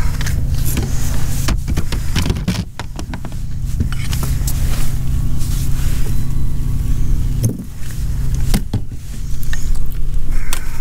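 Steady low hum of the kayak's integrated Minn Kota electric trolling motor running, with scattered knocks and clicks from a fish and the landing net being handled against the hull.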